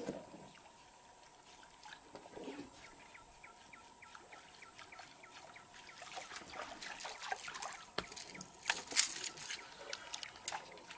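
Topwater lure being jerked across the water surface, making a run of small splashes and spits that grow denser after the first half, with the loudest splash about nine seconds in.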